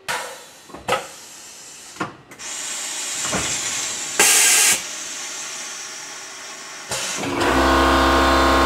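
Tormach CNC mill's automatic tool changer cycling with a few clunks, then the pneumatic drawbar opening the collet with a really loud hiss of leaking air, loudest in a half-second blast a little past four seconds in. The leak comes from a loose air fitting, which is not supposed to happen. Near the end an air compressor kicks on and runs with a steady hum.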